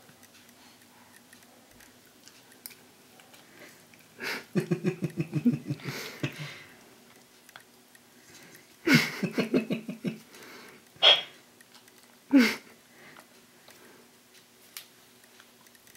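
Short bursts of a human voice: two runs of rapid, pulsed, laugh-like vocal sounds, then two brief vocal sounds that fall in pitch, over faint chewing and mouthing sounds.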